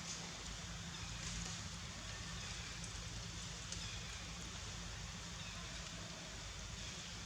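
Steady outdoor background hiss with a low rumble underneath and a few faint ticks scattered through it.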